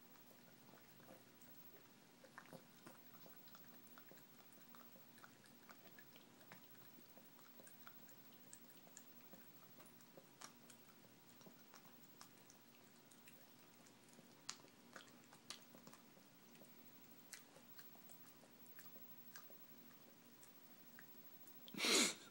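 Yorkshire terrier licking and chewing peanut butter off a fingertip: faint, quick wet smacks and clicks scattered irregularly. Near the end there is one short, much louder burst of noise.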